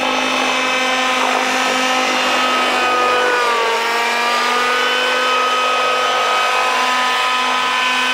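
Engines of a twin-engine radio-controlled model helicopter running steadily as it hovers, a high engine whine over the rotor noise. The pitch dips briefly about three and a half seconds in, then holds slightly lower.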